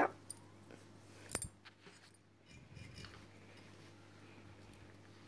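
Light handling of small miniature-kitchen utensils: one sharp click about a second and a half in, then a few faint taps and a soft rustle, over a steady low hum.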